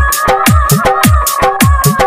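DJ-style electronic dance music: a heavy kick drum about twice a second with sharp claps or hi-hats between the beats, under a sustained, wavering high synth tone.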